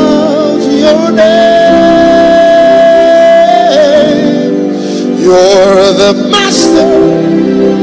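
Live gospel worship music: a solo voice sings a slow melody with vibrato, holding one long note for about two seconds, over sustained accompaniment chords.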